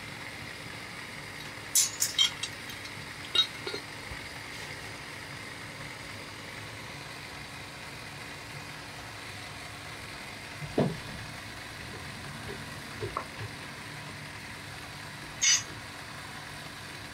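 Hands setting metal casting pattern pieces onto a sand mould: a few light clinks and taps, a dull thump partway through and a short scrape near the end, over a steady background hiss.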